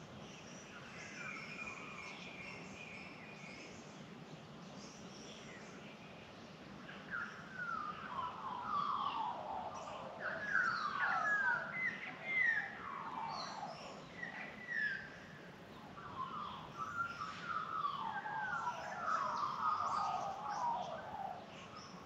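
Australian magpies carolling: phrases of fast, sliding, warbling notes that start about a third of the way in and keep going until near the end, over fainter, higher chirps from other small birds.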